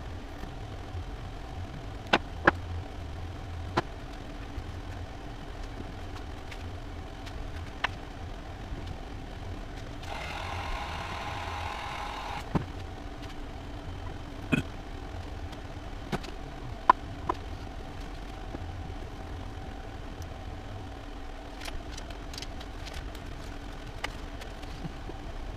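Scattered sharp clicks and taps of hands working on wiring with tools and small parts, over a steady low hum. A buzzing noise lasts about two seconds, about ten seconds in.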